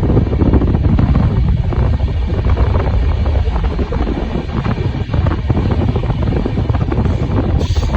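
Wind rushing over the microphone on a moving Indian Railways train, over the train's steady low rumble.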